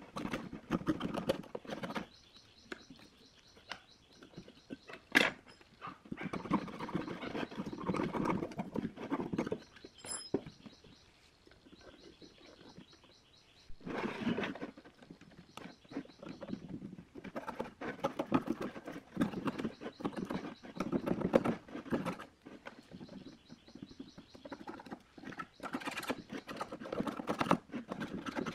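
A small knife blade scraping and cutting around the rim of a rusty speaker's metal frame: stretches of rapid scratching with short pauses between them, and one sharp click about five seconds in.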